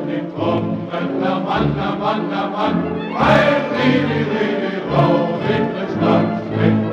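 Music from a medley of old German Landsknecht and peasant songs, with a choir singing. There is a bright swell about three seconds in.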